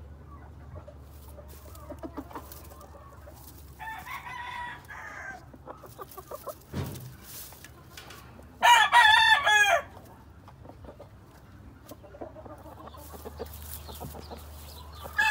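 Gamefowl roosters crowing: a fainter crow about four seconds in, a loud crow of about a second near the middle, and another starting at the very end. Small scratching clicks and a low steady hum run underneath.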